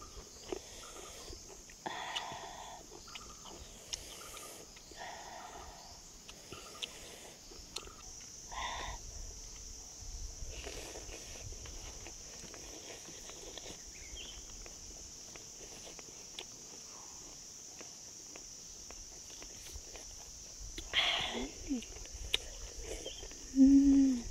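Insects droning steadily in a high band, with scattered short clicks and a few brief rustling, clattering noises, and a short pitched vocal sound near the end.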